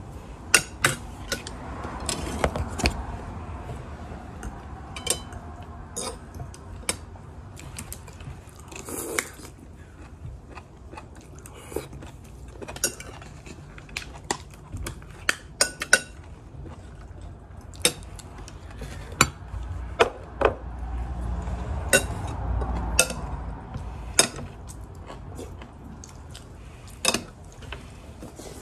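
Metal spoon and fork clicking and scraping against a plate in dozens of sharp, separate clinks while someone eats, with chewing between them.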